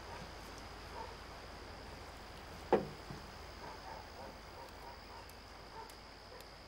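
Faint, steady insect chirring, like crickets at night, with one short, sharp sound that drops in pitch about three seconds in.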